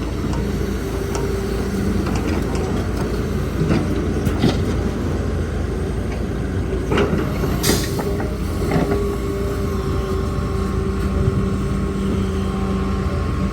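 Diesel engines of an excavator and dump trucks running steadily with a deep rumble, broken by a few short knocks and a brief sharp high-pitched noise about halfway through.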